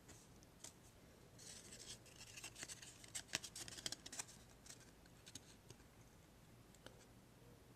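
Faint rustling and quick clicks of trading cards being handled, thickest from about a second and a half in to about four seconds in, with a few stray ticks after.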